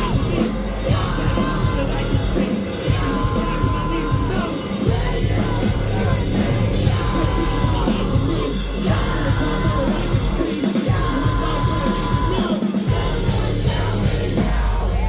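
Loud live band music kicking in at full volume, with the crowd yelling.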